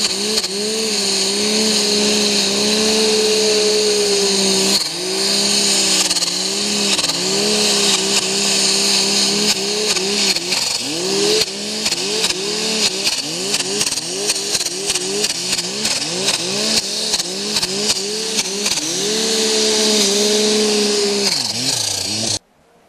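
Snowmobile engine revving hard while climbing a steep snow chute, its pitch rising and falling with repeated throttle changes under a steady hiss. It cuts off abruptly near the end.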